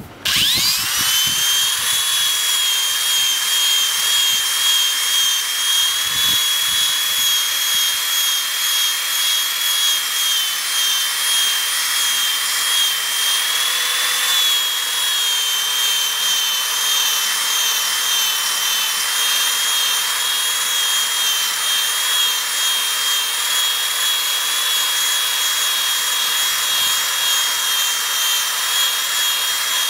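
Drill spinning a Powerball foam polishing buffer against a nameplate with polish and water: it spins up with a rising whine at the start, then runs with a steady high-pitched whine that wavers briefly about halfway through.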